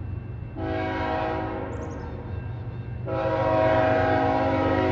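Diesel locomotive air horn sounding a multi-tone chord in two long blasts, the first about half a second in and the second, louder one starting about three seconds in and still held at the end, over a steady low rumble.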